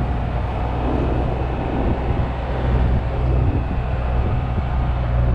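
Ford Bronco's engine and drivetrain running steadily at crawling speed in four-wheel-drive low, a constant low drone.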